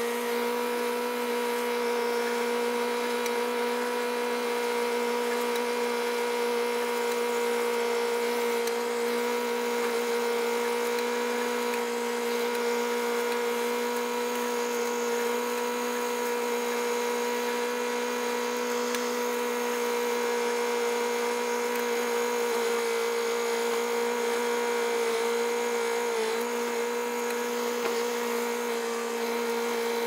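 Case 580CK backhoe's engine running at a steady speed with a constant whine as the tractor drives along pushing snow.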